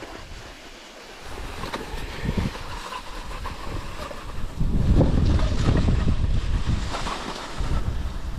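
Wind buffeting the microphone of a moving cross-country skier, heaviest about halfway through, over the hiss of skis sliding in a groomed classic track.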